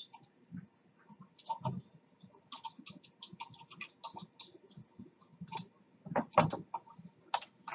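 Computer keyboard keystrokes and mouse clicks: irregular runs of quick taps, with a few louder knocks a little past the middle.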